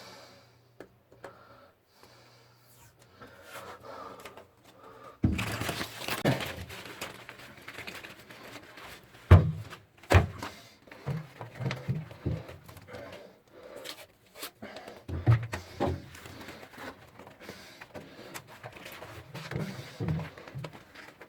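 Irregular knocks, clatter and handling noise from hands-on repair work on a split air-conditioner unit, beginning about five seconds in, with a sharp thunk about nine seconds in and another about a second later.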